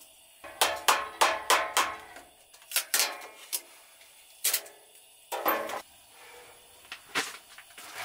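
Metal camp cookware being handled: about a dozen ringing clanks and clinks in uneven clusters, loudest in the first two seconds.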